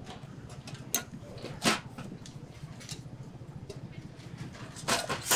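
Deep-fried squid being tossed in a stainless-steel seasoning bowl: a few sharp knocks and clinks of the bowl, a couple spaced through the middle and a cluster near the end, over a steady low hum.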